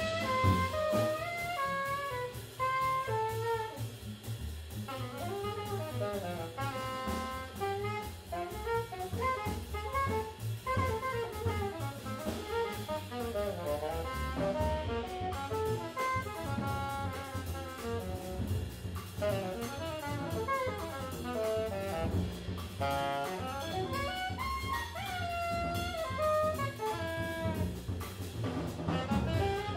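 Live jazz from a quintet of saxophone, trumpet, trombone, bass and drums: quick, winding horn lines over a walking bass and busy drum kit.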